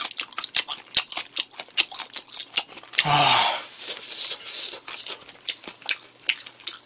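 Close-up chewing and wet lip-smacking of sauced fried chicken, many quick sharp clicks, with one loud breathy exhale about three seconds in as the heat of the spicy chicken gets to him.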